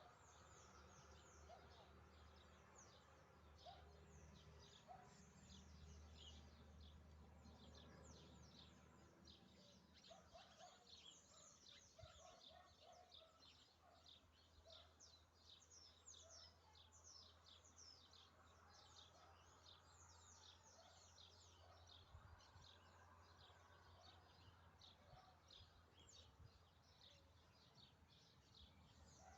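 Faint, continuous chorus of many birds chirping: dense short high notes, each falling quickly in pitch, with a few lower calls, over a low steady hum.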